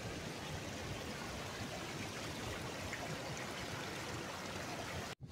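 River water running over a rocky streambed: a steady, even rush. It cuts out for an instant near the end.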